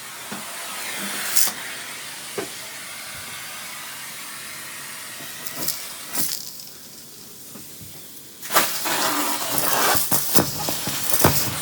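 Central vacuum hose sucking air with a steady rushing hiss, and debris clicking and rattling as it is pulled through the wand and hose. About six seconds in the airflow sound drops as the wand is choked by a large piece. About two seconds later it opens up again with a loud burst of crackling, rattling debris rushing through.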